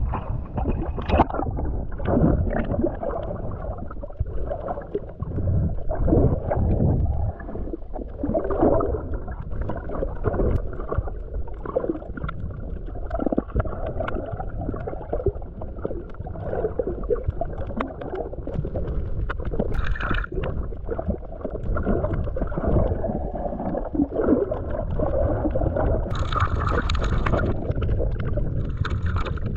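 Muffled underwater sloshing and gurgling of seawater against a GoPro's waterproof housing, with low rumbling surges and soft knocks as the camera moves. Near the end the water noise turns brighter and hissier.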